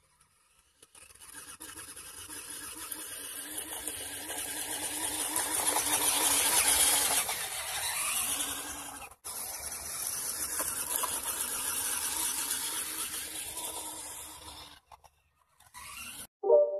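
Eachine EAT01 1/16-scale six-wheel-drive RC truck driving over gravel: the high whine of its small electric motor and gears, with tyres crunching on stones. It grows louder as the truck comes close, fades as it drives away, and breaks off briefly just after the middle. Music begins near the end.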